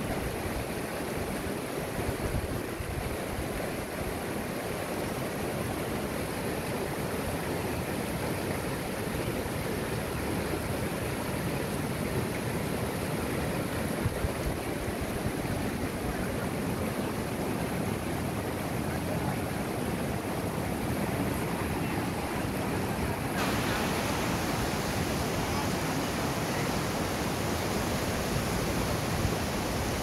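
Rushing water of a fast, rocky mountain stream pouring over rapids, a steady, even rush. About three quarters of the way through, the sound turns suddenly brighter and hissier.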